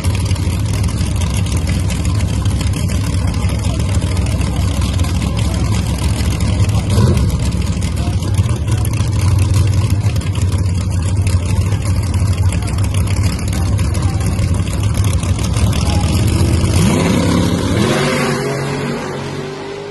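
Drag racing car engine running loudly and steadily at the starting line, then revving up in a quick rising sweep near the end as it launches, the sound fading as the car pulls away.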